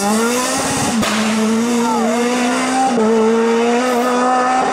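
Renault Clio III rally car accelerating away on a wet road, its engine running hard at high revs. The pitch climbs over the first half second, then two quick upshifts about one and three seconds in each briefly drop the note before it steadies high again.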